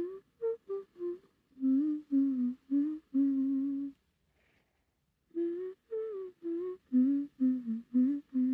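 A woman humming a melody in separate notes, in two phrases with a pause of about a second between them.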